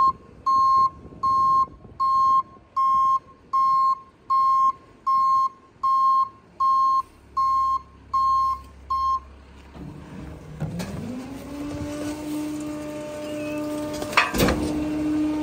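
Pak Mor rear loader garbage truck's reversing alarm beeping about twice a second, stopping about nine seconds in. Then the truck's engine rises in pitch and holds steady, with a sharp clack near the end.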